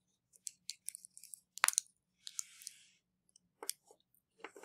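Small clicks and handling noises of a hobby motor being pressed into its holder on a craft-stick cart, with one sharper click about one and a half seconds in and a short scraping rustle just after.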